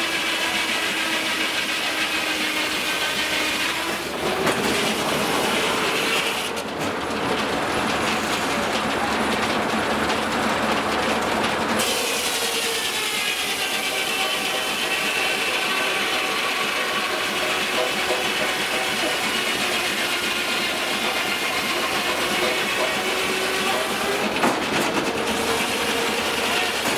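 Steam-engine-driven circular sawmill at work: the big saw blade spins with a steady whine while a log is fed through it on the carriage, with a harsher stretch of cutting noise lasting several seconds and the carriage clattering along its track.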